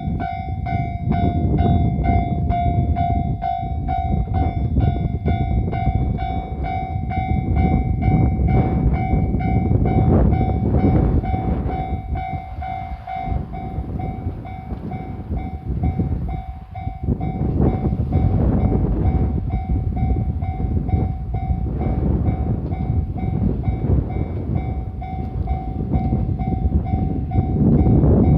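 Japanese level-crossing warning bell ringing in a fast repeating ding, about two to three strikes a second, while a diesel railcar passes over the crossing with rumbling engine and wheel noise. The bell grows fainter about three quarters of the way through as the train noise goes on.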